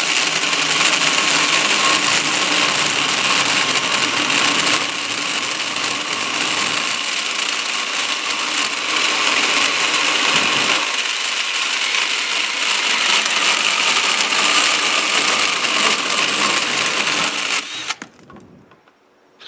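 Cordless drill driving a 6-inch chainsaw attachment, its chain sawing through a clamped wooden branch with a steady, high-pitched whirr. It stops about 18 seconds in, and a short sharp noise comes at the very end.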